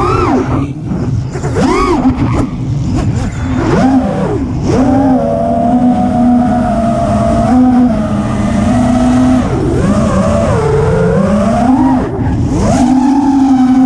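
Four T-Motor brushless motors with Gemfan three-blade props on a 6S FPV freestyle quadcopter, heard from the onboard GoPro. The motor whine swoops up and down with quick throttle punches over the first few seconds, then holds steady at cruise. It dips about ten seconds in and climbs again near the end.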